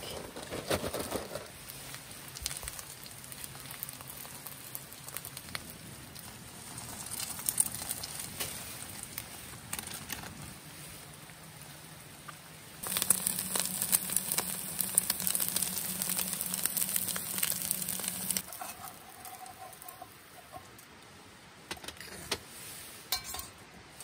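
Seafood pancake batter sizzling as it fries in a pan on a canister gas stove, loudest for about five seconds in the middle. Near the start, a plastic bag rustles as the batter is shaken out of it into the pan.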